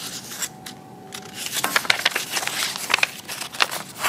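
A paper booklet's page being turned by hand: paper rustling and crinkling, with a quick run of small clicks and crackles from about a second and a half in.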